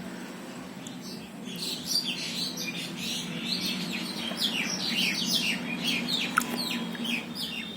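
Small birds chirping in a rapid, dense chatter of short falling chirps, starting about a second and a half in. A steady low hum runs underneath.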